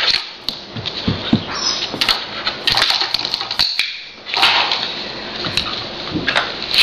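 Standard poodle puppy pawing at a wall light switch: many short sharp clicks and scrapes of claws and paws on the switch and wall, with a brief lull about four seconds in.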